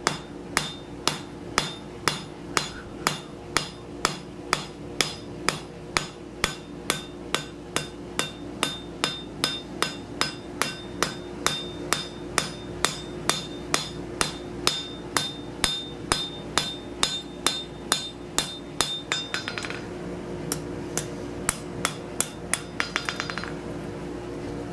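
Hand hammer striking hot steel on an anvil at a steady two to three blows a second, driving down the bevel on the outside edge of a leaf scroll. Near the end the blows give way to two quick runs of light rapid taps. A forge blower hums steadily underneath.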